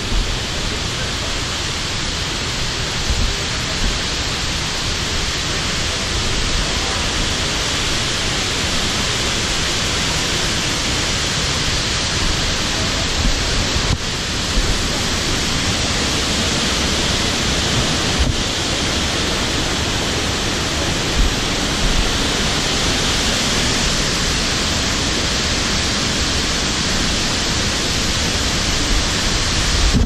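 Steady, even rushing noise at a constant level, with a few soft low thumps.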